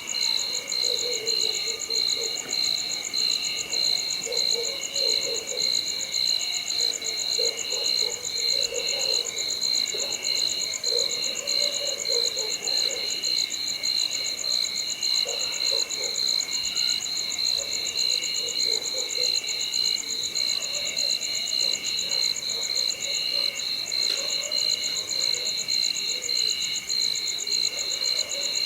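Nighttime chorus of crickets and other insects trilling steadily at several high pitches, with frogs calling in low, repeated croaking bursts about every second or two.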